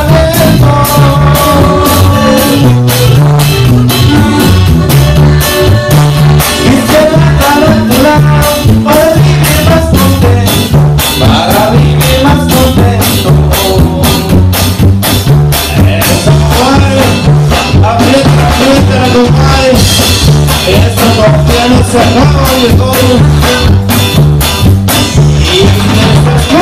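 Live band with electronic keyboards and a drum kit playing a Latin dance song at full volume over a steady beat, with a singer on microphone.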